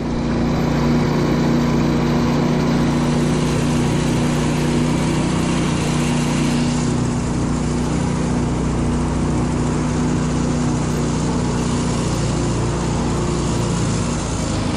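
Engine of a homemade karakat, a low-pressure-tyre all-terrain vehicle, running steadily under way, heard from on board.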